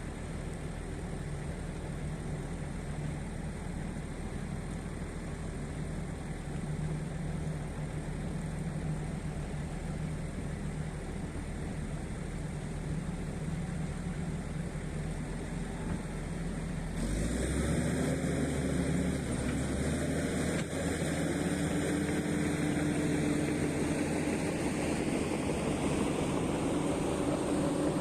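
Heavy earthmoving machine's diesel engine running steadily. About seventeen seconds in it turns suddenly louder and fuller, as under more throttle or load, with a rising whine near the end.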